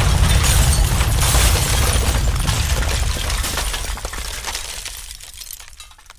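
Sound effects for a skyscraper collapsing: a low rumble full of shattering glass and crackling, breaking debris that fades away steadily over the last few seconds.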